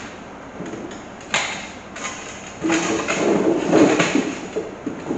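Parts of a chicken plucker being handled: two sharp clicks, then a couple of seconds of scraping and rattling as the plucker's steel drum and fittings are shifted about.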